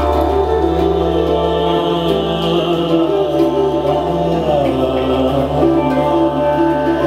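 Live instrumental music: a handpan and a jaw harp over a steady low drone, with a flute playing held notes in the second half.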